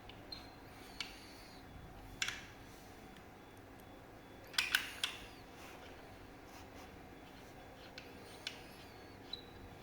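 Scattered clicks and clacks of hard parts and tools being handled while a rear fender is taken apart. A cluster of three louder clacks comes about halfway, with a few light ticks and faint squeaks around them.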